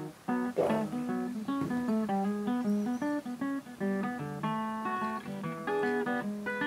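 Background music: a plucked guitar melody of short, quick notes, with a strum about half a second in.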